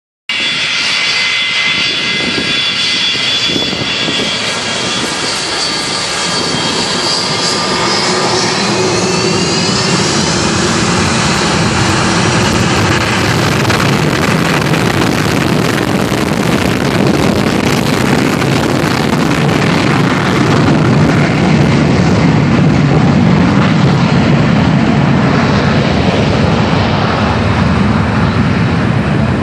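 Jet airliner's engines spooling up for takeoff: a high whine that rises in pitch about eight seconds in, then a loud, steady jet roar that builds to its loudest about three-quarters of the way through.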